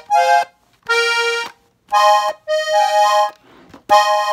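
Hohner Xtreme diatonic button accordion in F playing the melody in A-flat in short phrases of a few notes each, several notes sounding together, with brief pauses between the phrases.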